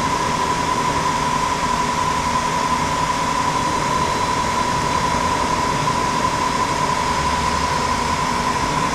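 Tsugami SX20-C CNC Swiss-turn lathe running in automatic: a steady machine hum and hiss with a constant high whine.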